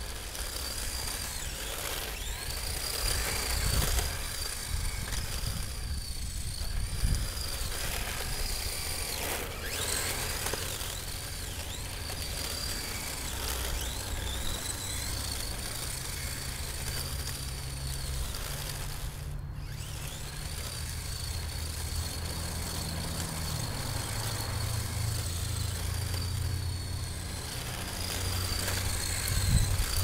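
Electric motor and shaft-driven drivetrain of a Tamiya TT-01D RC drift car whining, the pitch rising and falling again and again as the throttle is worked. A steady low rumble runs underneath.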